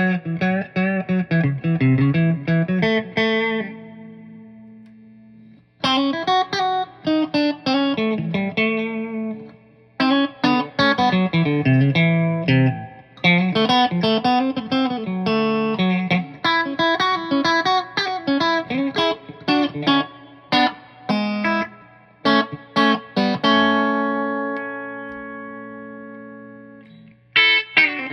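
A 1987 G&L SC-3 electric guitar played through an amplifier with a clean tone, in phrases of quick picked single notes and chords. Twice, held notes are left to ring and fade out, about three seconds in and again near the end.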